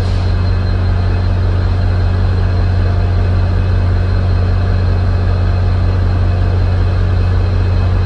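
Steady low drone of a railway diesel engine idling, even in level throughout, with a faint high whine over it.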